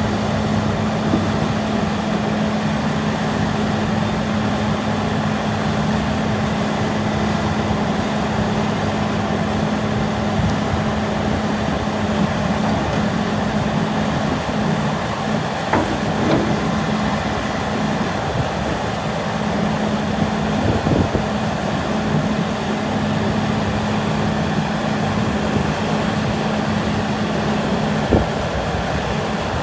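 Bobcat S770 skid-steer loader's diesel engine running at a steady speed, with a few short knocks from the machine.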